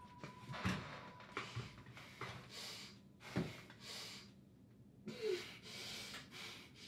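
A man breathing heavily in ragged gasps and sighs, a breath every second or so, with two sharp knocks, about a second in and halfway through, the loudest sounds.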